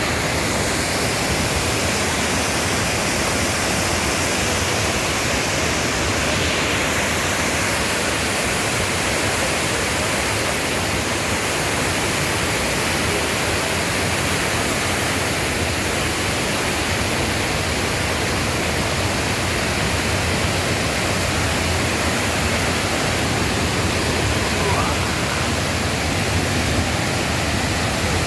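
Waterfall in a mountain valley stream: falling water rushing steadily, a dense, even noise with no breaks.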